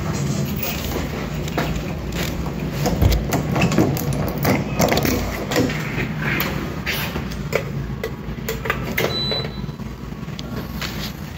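Door handle and lock rattling and clicking again and again as someone struggles to get a room door open, with a low steady hum underneath.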